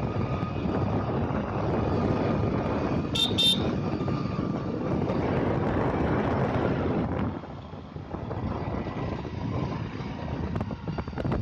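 Wind rushing over the microphone and a motorcycle engine running while riding, with two short horn toots about three seconds in.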